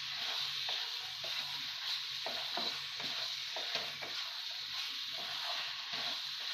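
Paneer cubes, onion pieces and masala frying with a steady sizzle in a kadai. A wooden spatula stirs and scrapes through them in short, irregular strokes, about two a second.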